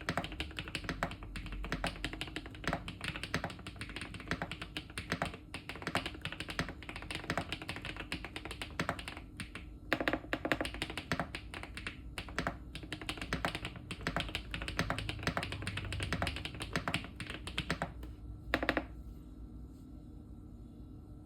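Fast continuous typing on a Weikav Max102 mechanical keyboard fitted with MMD Princess Tactile Ultra tactile switches, with a few heavier strokes among the key presses. The typing stops near the end.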